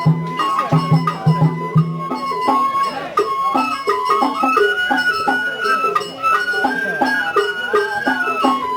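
Sawara bayashi festival music: a high bamboo flute melody stepping up and down in pitch over regular percussion beats, with deep repeated notes in the first couple of seconds.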